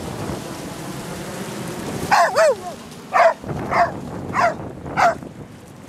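Dog barking six times in quick succession, about two barks a second, starting about two seconds in. Before the barks there is a steady wash of surf and splashing water.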